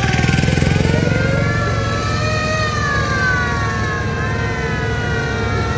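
Tractor diesel engines running with a dense, rapidly pulsing low rumble, overlaid by several high whining tones that glide slowly downward.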